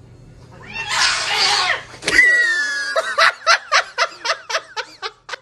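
A person laughing hard, a run of short ha-ha bursts about four a second that fade away. Before it, about a second in, comes a loud hissing rush and then a short high cry that falls in pitch.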